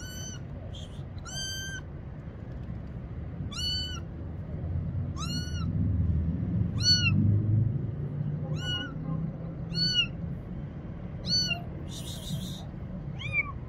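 A kitten meowing over and over: about ten short, high-pitched meows, each rising then falling in pitch, roughly one every second or two.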